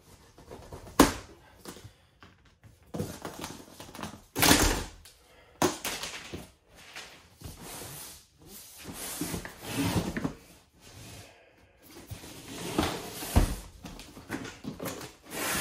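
A large cardboard box being handled and opened on a tile floor: cardboard scraping and rustling as the lid is worked off, broken by several knocks and thuds as the box is tipped and set down. A sharp knock comes about a second in, and the loudest thud about four and a half seconds in.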